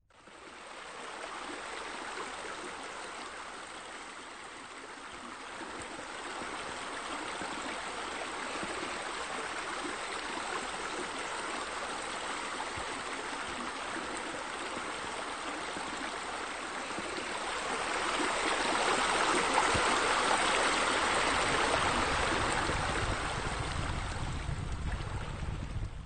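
Steady rushing and splashing of running water, like a sheer-descent waterfall spilling from a raised stone wall into a pool. It fades in at the start and grows louder about two-thirds of the way through.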